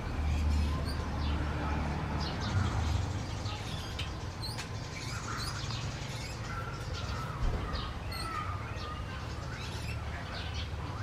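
Small birds chirping on and off in the background over a steady low rumble.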